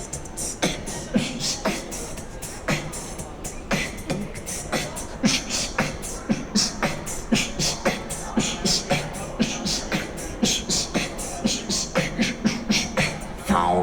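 Human beatboxing: one performer's voice making a steady, fast beat of low kick-drum thumps and sharp, hissing snare and hi-hat strikes.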